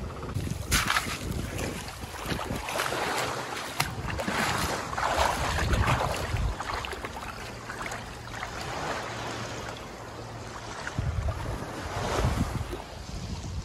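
Small waves washing and lapping on a stony shoreline, swelling and falling back in repeated surges, with wind buffeting the microphone.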